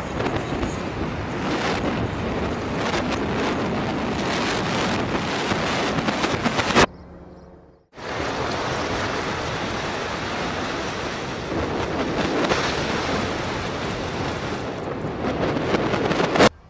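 Explosive building demolitions played backwards: a dense rumble and crackle of collapsing masonry and debris that swells and ends in a sharp bang that cuts off suddenly. This happens twice, with a short, much quieter gap between the two.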